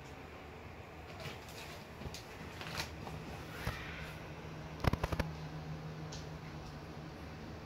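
Handling noise from a phone camera being panned: scattered light clicks, then a quick run of sharp clicks about five seconds in, over a low steady hum that comes in about two and a half seconds in.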